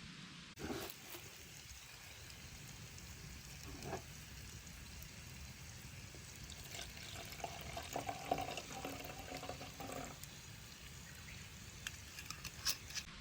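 Sake being poured from a bottle into a cup for about three seconds, with a steady gurgling pitch. Sharp crackles from the campfire come and go, several of them near the end.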